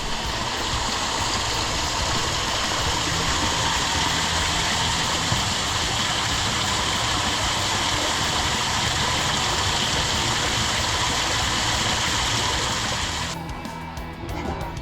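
Background music under a steady rushing noise like running water. The rushing noise cuts off suddenly near the end, leaving the music alone.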